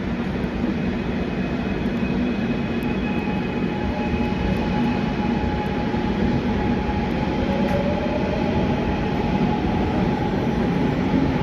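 Gwangju Metro Line 1 subway train running between stations, heard from inside the carriage: a steady rumble of wheels and traction motors. A faint whine glides upward about seven seconds in.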